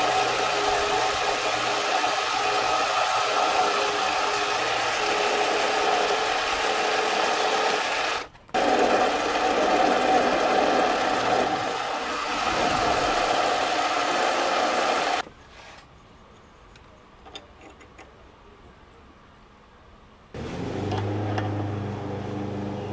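Small benchtop metal lathe running, its spindle and gearing giving a steady whir while the tool turns a fixture part. The sound breaks off briefly about eight seconds in, then drops to a quiet stretch with a few faint clicks from about fifteen to twenty seconds, before a steadier, lower hum comes back near the end.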